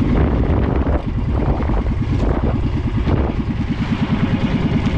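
Small fishing boat's engine running steadily with a fast, even beat, and a few faint knocks over it.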